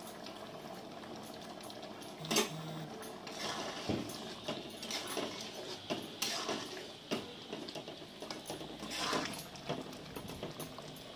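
Thick vegetable curry simmering in an aluminium kadai on a gas burner, with a metal spatula stirring it and knocking and scraping against the pan several times.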